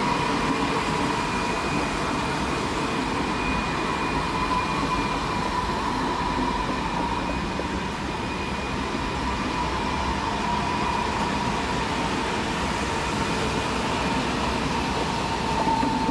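České dráhy class 680 Pendolino electric tilting train pulling out of the station and running away, a steady rolling hiss with a high whine.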